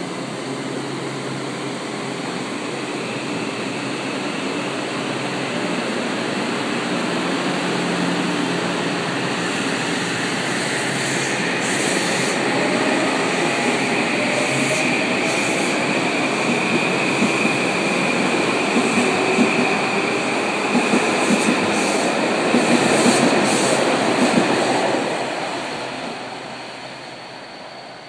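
Metro-North M8 electric multiple unit pulling out of the station and picking up speed, its traction motors whining upward in pitch over the rumble and clicking of its wheels. The sound fades near the end as the last car leaves.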